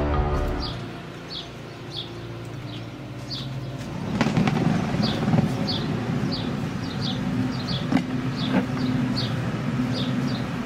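Electric blower of an inflatable bouncy castle running with a steady hum that gets louder about four seconds in, pushing air into the deflated castle. A bird chirps over it in short, high notes, about once or twice a second.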